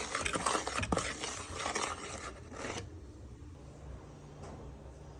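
Quick scraping and scratching strokes of a kitchen utensil against a pan or bowl, which stop about three seconds in; a faint low hum remains.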